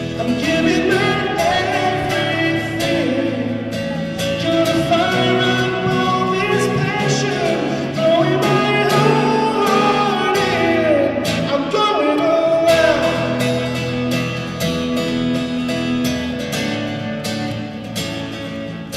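Song with a man singing over guitar accompaniment.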